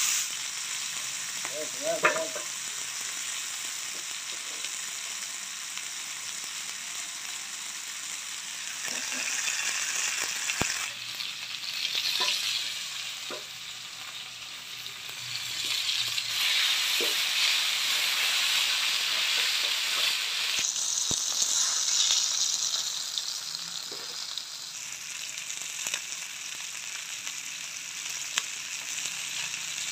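Whole jalebi fish (tilapia) shallow-frying in oil in a flat iron pan, sizzling steadily and swelling louder for stretches in the middle, with a few light clicks scattered through.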